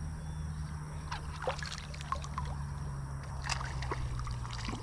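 Small water splashes and drips at a boat's side, scattered and irregular, over a steady low hum.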